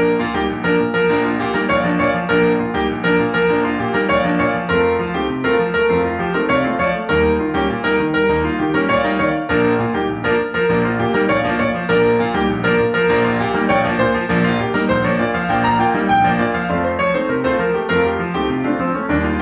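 Background instrumental music with piano, many notes played steadily throughout.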